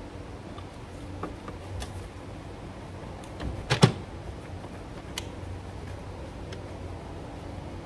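Gloved hands working on the top of a BMW N54 engine: scattered light clicks and knocks of parts being handled, with two louder knocks close together about four seconds in, over a steady low hum.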